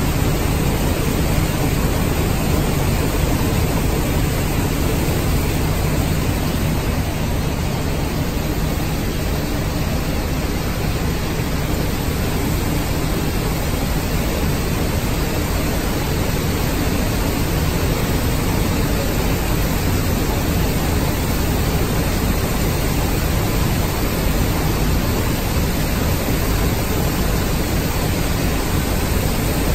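Manufactured-sand plant machinery running: a steady, even noise from the conveyor belts carrying wet sand and the plant equipment around them, with a faint low hum underneath.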